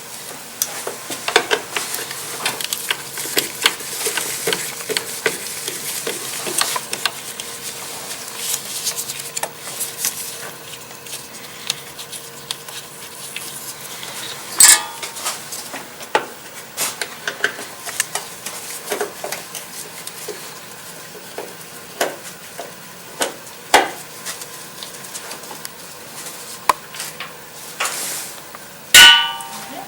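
Hand tool work on a plastic coolant reservoir: a Phillips screwdriver turning out its mounting screws, with a long run of scattered small clicks, scrapes and clinks. Louder clinks come about halfway through and again near the end, the last one ringing briefly.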